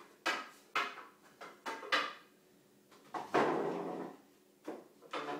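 Dining chairs being shifted on a tile floor: a run of sharp knocks as the chair legs are set down, with a longer scrape about three seconds in.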